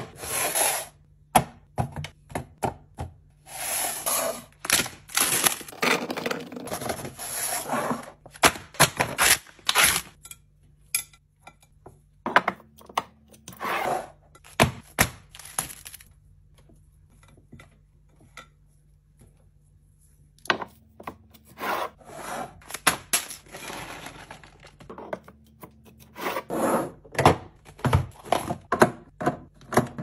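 Close-up food-handling sounds: sharp clicks and knocks as food is set into clear plastic storage containers, with stretches of plastic packaging rustling and crinkling.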